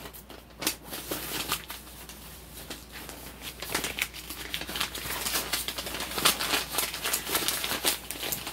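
Handling noise: irregular rustling and crinkling with light clicks and knocks as a plush toy and other things are moved about close to the phone's microphone.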